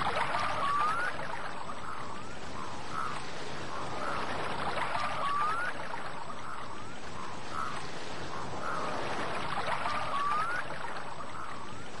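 Short chirping animal calls repeating less than a second apart, with a brief rising whistle about every five seconds, over a steady rushing wash of noise.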